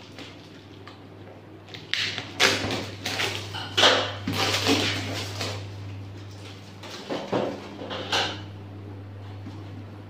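Packing tape being peeled and ripped off a cardboard box by hand. There is a run of rough tearing pulls from about two to six seconds in, then two shorter pulls a little later.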